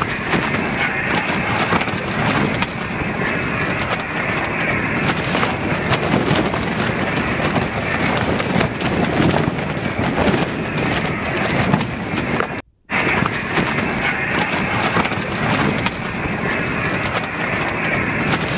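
Steady hiss of static from a 2-metre FM radio's speaker on an empty channel, with no station coming through. It cuts out briefly once, about two-thirds of the way in.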